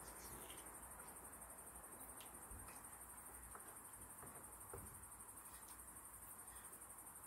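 Near silence: a faint, steady, high-pitched insect chirring, with a few faint clicks of chopsticks against the aluminium pot.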